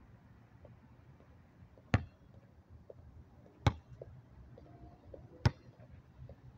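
Basketball bouncing on a hard outdoor court: three sharp bounces, each with a short ring, evenly spaced less than two seconds apart.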